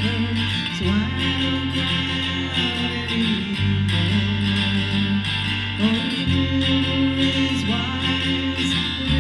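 Live guitar music from an outdoor duo: a strummed acoustic guitar over steady, sustained low notes that change about every two to three seconds.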